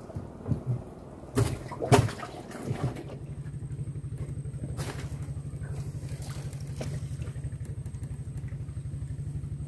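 A few sharp knocks and clatters, then about three seconds in a small boat engine starts running at a steady low speed with a fast, even pulse.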